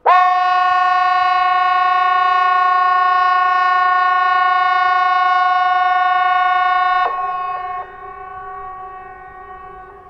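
Hesa Fredrik civil-defence warning horn sounding during its quarterly test: one loud, steady horn tone that starts abruptly and cuts off after about seven seconds, then lingers faintly and fades away.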